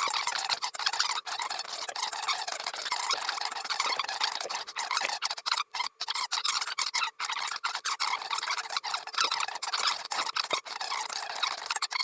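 Fast-forwarded workbench sounds of a mini RC crawler being assembled: a dense, choppy chatter of high-pitched scraping and clicking, broken by many brief gaps.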